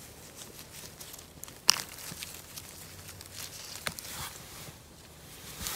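Rustling and crinkling of a gloved hand picking small mushrooms out of moss, with scattered small snaps and clicks; one sharp click about 1.7 seconds in is the loudest.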